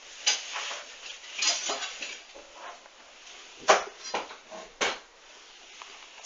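Hoover front-loading washing machine tumbling a duvet in its wash, water sloshing in irregular swishes, followed by two sharp knocks about a second apart past the middle.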